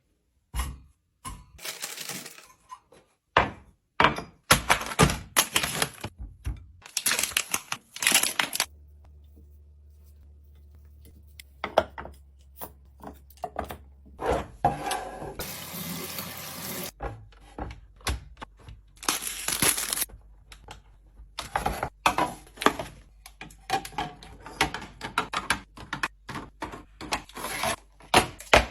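Refrigerator restocking sounds: containers, jars and bottles clinking and knocking as they are set down and handled, with a few short rushes of pouring or rustling noise and a low hum through the middle stretch.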